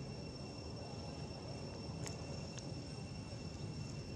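Steady high-pitched insect drone, with a low outdoor rumble beneath it and two faint clicks about two seconds in.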